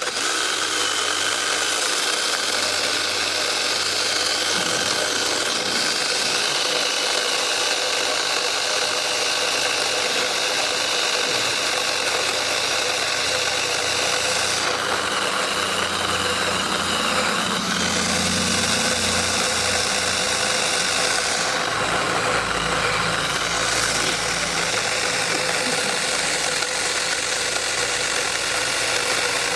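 ImoumLive 6-inch battery-powered mini chainsaw running continuously while cutting through a log, a steady motor-and-chain whine whose tone shifts twice in the second half.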